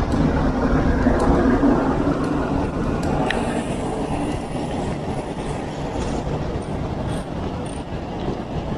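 Wind rumbling on the microphone with tyre and road noise from a mountain bike riding along smooth pavement, louder for the first two seconds as a van goes by.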